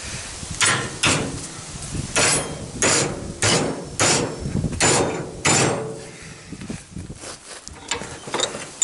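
A hammer striking a 10 mm steel rod clamped in a bench vice, bending it into a hook: about nine heavy metallic blows with a short ring after each over the first six seconds, then a few lighter taps near the end.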